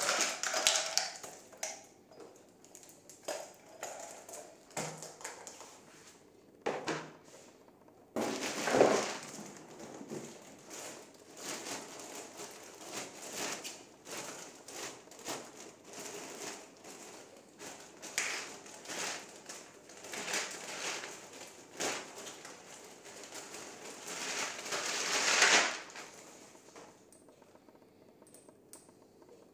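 Plastic packaging bags crinkling and rustling, with cardboard box and hand-handling noises, as parts are lifted out and unwrapped. It comes in irregular spells, with two louder bursts of crinkling about a third of the way in and near the end, then settles into quieter handling.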